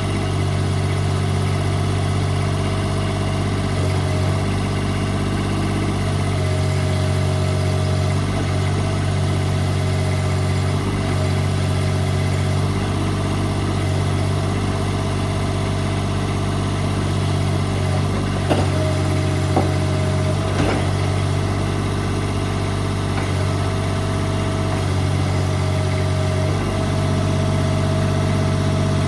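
Kubota B26 tractor's three-cylinder diesel engine running steadily at idle. About two-thirds of the way in there are three short knocks, about a second apart.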